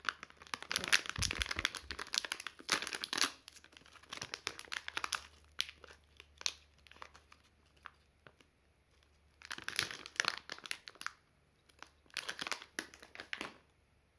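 Metallized anti-static bag crinkling in irregular bursts as it is torn open and handled. There is a quieter pause of about two seconds past the middle before the crinkling starts again.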